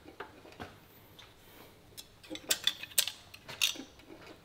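Metal clicks and clinks from a crankshaft grinding machine being set up by hand, with its grinding wheel not running. A couple of single clicks come first, then about two seconds in a quick run of sharp clinks and knocks.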